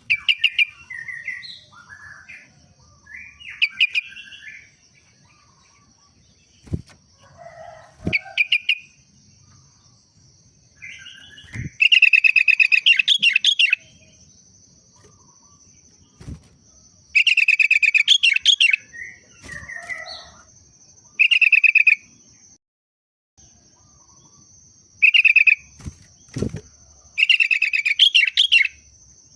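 Sooty-headed bulbul (kutilang) singing in repeated bursts of rapid, loud chattering phrases, the longest about two seconds. A steady high-pitched buzz runs underneath, breaking off briefly a little past the middle, and there are a few low knocks.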